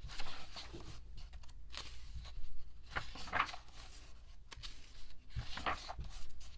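Paper and thin cardboard being handled: uneven rustling with a few light taps and clicks as printed cards and pages are shuffled and turned.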